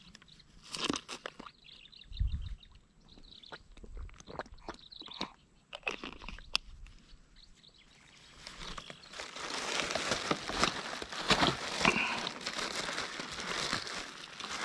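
Close crunching and crinkling handling noise: scattered clicks at first, then a denser crackling run from about eight seconds until near the end.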